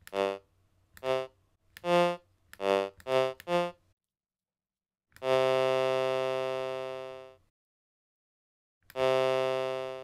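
Buzzy synthesized tones from a Teensy 3.6 audio board, each shaped by an ADSR volume envelope as push buttons are pressed. First come six short notes at different pitches in quick succession. Then a longer note fades out slowly over about two seconds, and another note starts near the end.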